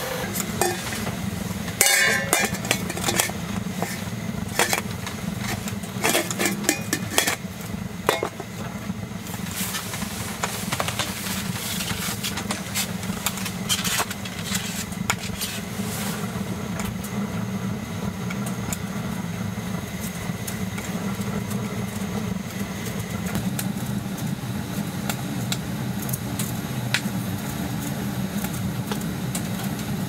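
Canister gas stove burner running under a pot with a low, steady roar. Metal clinks and knocks of pot and lid being handled come in the first several seconds.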